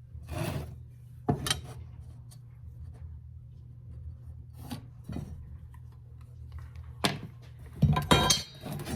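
Steel flat bar being handled while it is measured and marked, giving scattered metal knocks and clinks, loudest in a cluster near the end, over a steady low hum.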